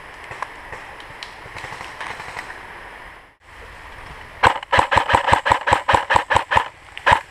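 Airsoft rifle firing a rapid string of about fifteen shots, roughly six a second, starting a little after halfway and stopping near the end, after a few seconds of quiet background.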